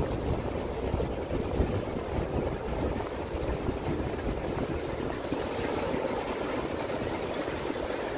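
Ocean surf breaking offshore and washing up the beach in a steady rush of foaming water. Wind buffets the microphone with a low rumble during the first couple of seconds.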